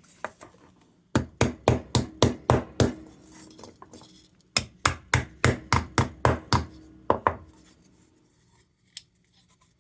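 Hammer blows on a bent sheet-metal part of an Embury Air Pilot lantern, pounding it flat. Two runs of quick strikes, about four a second, the first near the start and the second from the middle on, with a short metallic ring under them.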